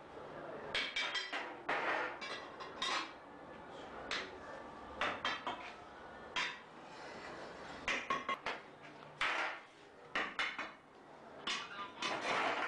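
Metal sand-casting mould flasks and tools clanking and knocking together as they are handled, in many sharp, irregular strikes.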